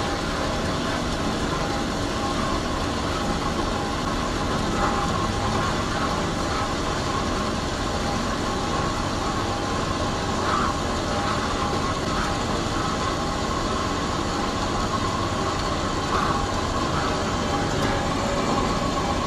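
RMT S-Smart CS 12-13 automatic column bandsaw cutting through a 4-inch round bar of 304 stainless steel with flood coolant on: a steady machine noise of the blade running through the cut, with a few faint steady tones.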